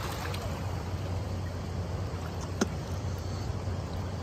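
Steady low rumble and rushing of river water and wind, with one short sharp click about two and a half seconds in.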